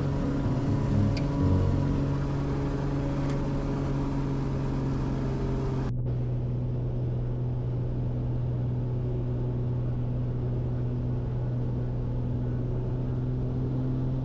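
Ski plane's propeller engine running steadily at low power as the plane taxis on snow, a constant low drone. About six seconds in the sound turns suddenly duller, losing its hiss, while the drone carries on.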